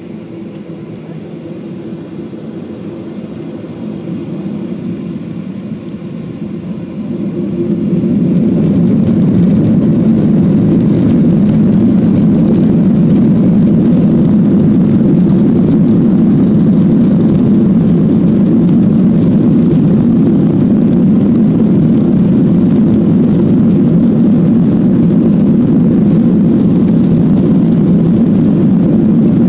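Boeing 737-800's CFM56-7B jet engines heard from inside the cabin, spooling up to takeoff thrust about seven seconds in, then a steady loud drone as the plane accelerates down the runway.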